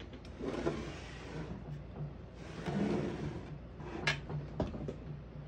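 A 1914 Underwood No.5 typewriter being handled: two soft sliding scrapes of its metal parts, then a sharp click about four seconds in, followed by a lighter one.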